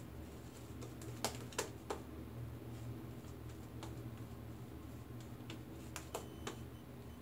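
Shaving brush working lather over the face: a soft patter of small clicks and crackles from the bristles and lather. There are a few sharper clicks about a second in and again around six seconds, over a steady low hum.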